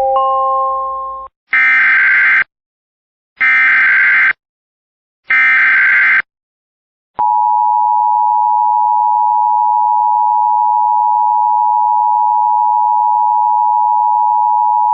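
Emergency Alert System tornado warning opening. A short rising chime fades out in the first second or so. Then come three SAME data header bursts, harsh digital screeches just under a second long each and about two seconds apart. From about seven seconds in, the steady two-tone EAS attention signal holds for the rest.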